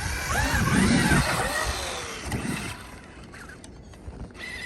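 Traxxas X-Maxx electric RC monster truck's motor whining as it revs up and down several times over the first couple of seconds, over a broad rushing noise. It fades away after that.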